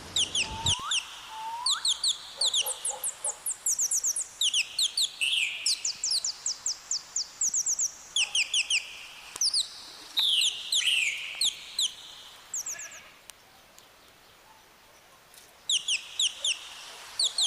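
Birds calling: quick trains of short, high-pitched notes repeated in bursts, with a few longer falling calls among them and a brief lull about three-quarters of the way through.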